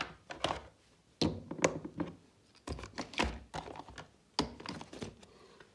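Glass perfume bottle being capped and packed into its cardboard box on a dresser top: an irregular string of sharp clicks, taps and light knocks, dying away near the end.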